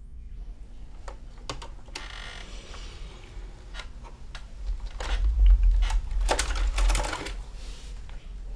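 Manual typewriter in use: scattered key strikes, a short ratcheting rattle about two seconds in, then a fast run of clacking keys from about five seconds in, with a deep low rumble under the busiest stretch.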